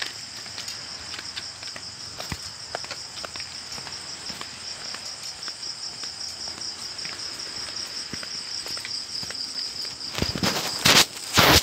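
Night insects chirping in a steady, pulsing chorus, with footsteps scuffing on a concrete path. Near the end come two loud, short bursts of rushing noise.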